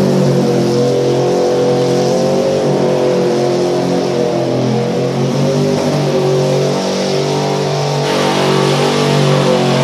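A 1978 Chevy K10 pickup's engine is held at high revs during a burnout, the rear tyres spinning on the pavement. The engine's pitch stays fairly steady, wavering slightly, over a haze of tyre noise.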